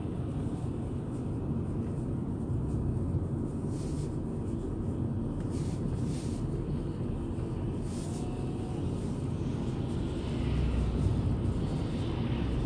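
Steady road and engine rumble inside a moving car's cabin, with oncoming vehicles whooshing past now and then. An oncoming articulated lorry passes near the end, the loudest moment.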